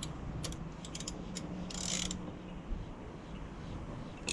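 Faint handling noise: scattered light clicks and a short rustle about two seconds in, over a low steady hum that stops a little past halfway.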